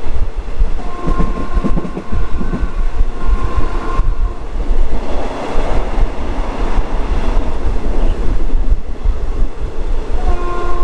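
Passenger train running along the track, heard from on board: a loud, steady low rumble from the wheels and coach. A higher held tone sounds twice, about a second in and again near the end.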